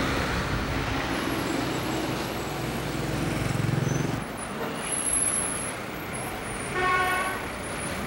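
Street traffic with a vehicle engine running low until about four seconds in, then a car horn sounding briefly near the end.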